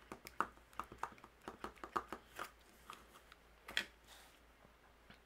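Light clicks and taps of hands handling cardstock and a clear acrylic stamp block on a tabletop: a quick run of small ticks for the first two and a half seconds, then a couple more near four seconds.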